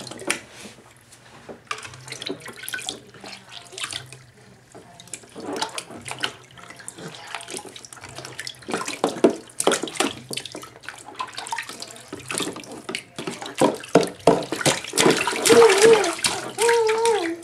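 Baby splashing, slapping the bath water with her hands in a small plastic baby tub; the splashes come in irregular bursts, getting faster and louder toward the end. A brief high voice rises over the splashing near the end.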